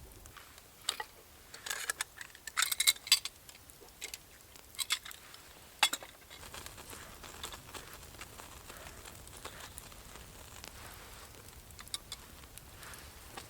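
A quick run of light clinks and knocks, like camp gear being handled, for the first half, then only soft steady background with an occasional faint tick.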